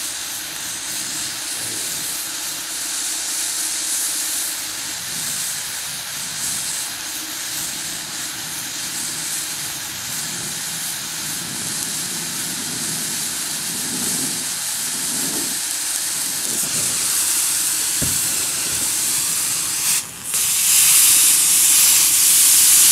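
Oxy-acetylene welding torch flame hissing steadily as it melts a small gap in thin steel sheet metal. About twenty seconds in the hiss cuts out briefly, then a louder sizzling hiss follows as a rag is pressed onto the hot weld and it steams.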